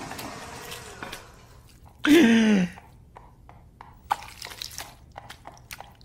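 A person's short wordless vocal sound, falling in pitch, about two seconds in, followed by scattered light clicks and taps.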